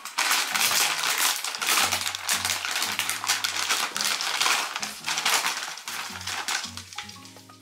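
Dry dog kibble rattling inside a crinkly plastic food bag as the bag is shaken, a dense rustle of tiny clicks that eases off near the end, over light background music.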